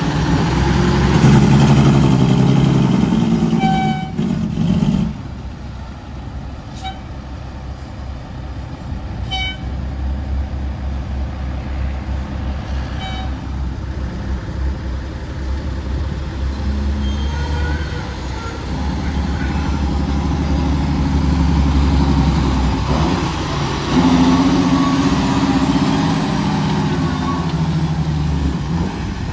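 Loaded diesel dump trucks running past on a dirt haul road, their engines loudest in the first few seconds and again in the last few. A few short, high beeps sound in between.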